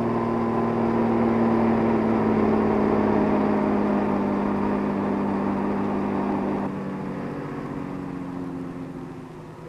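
Scania-Vabis LA82 six-wheel-drive military truck's diesel engine running steadily under load as the truck drives through mud, growing fainter from about seven seconds in.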